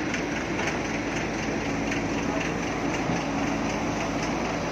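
Heavy diesel engine running steadily, with a dense mechanical clatter over its low drone.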